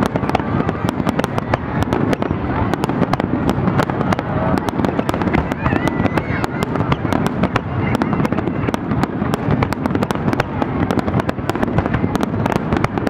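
Aerial fireworks shells bursting in a rapid, unbroken barrage, many sharp bangs and crackles a second at a steady loudness.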